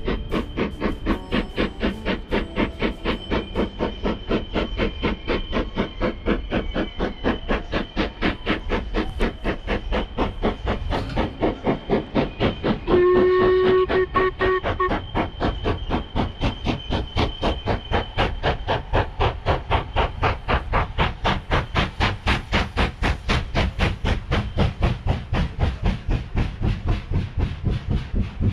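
Steam locomotive working hard, its exhaust chuffing in a steady rhythm of about three beats a second, with one whistle blast of about a second and a half near the middle, the loudest sound.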